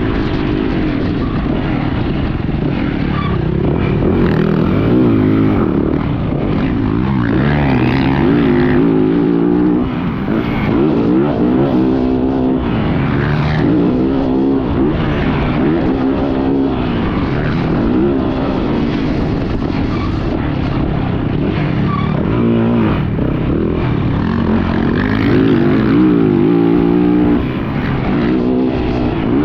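Yamaha YZ450F motocross bike's single-cylinder four-stroke engine on the track, revving up and falling back again and again every couple of seconds as the throttle is worked through the corners and jumps.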